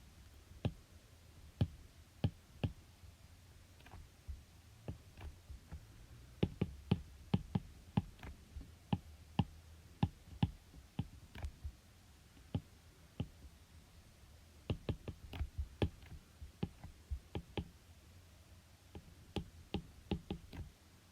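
Irregular sharp clicks and taps, coming in quick runs with short gaps between them.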